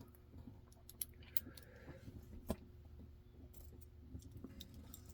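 Scattered small metallic clicks and taps, the loudest about halfway through, from lock picks and tension tools being handled against a just-opened lock.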